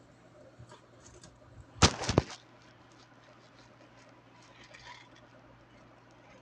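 Three or four sharp clicks or taps in quick succession about two seconds in, over a faint steady low hum; otherwise quiet.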